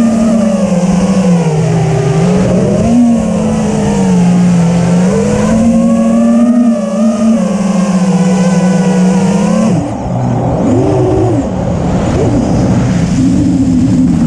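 Brushless motors of an FPV freestyle quadcopter whining loudly, their pitch rising and falling with the throttle. The sound dips and changes character about ten seconds in.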